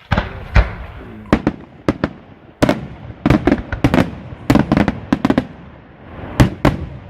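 Aerial firework shells bursting overhead: a rapid, irregular run of sharp bangs, often in quick pairs or clusters, with rumbling echo between them.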